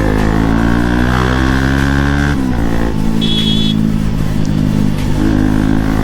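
Bajaj Pulsar NS200's single-cylinder engine pulling, its pitch rising for about two seconds, then falling away sharply and running on lower and steadier. A brief high beep sounds a little after the midpoint.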